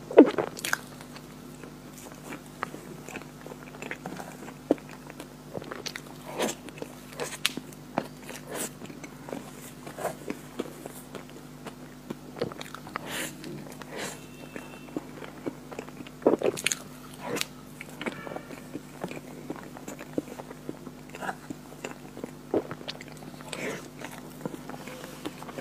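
Close-up eating of chocolate ice cream cake: a spoon cutting and scraping through the cake, with chewing and wet mouth sounds and scattered short clicks and smacks. A steady low hum runs underneath.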